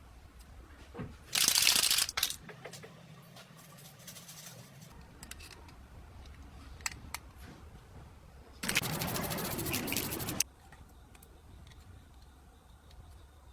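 Aerosol spray-paint can spraying in two bursts, a short one about a second in and a longer one of nearly two seconds later on, with light clicks and handling noises between them.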